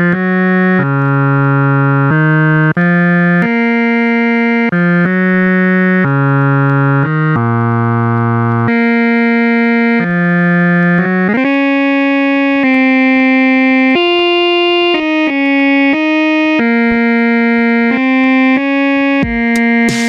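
Instrumental background music of held chords that change every second or so. After a short upward slide about eleven seconds in, the deep bass notes drop out.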